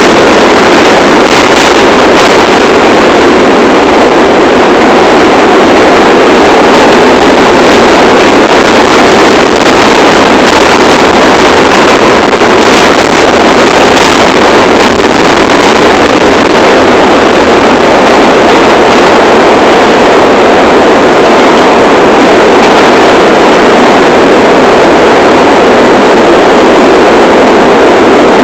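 New York City subway train running at speed: a loud, steady rush and rumble of wheels on the rails and air past the train, with no stops or pauses.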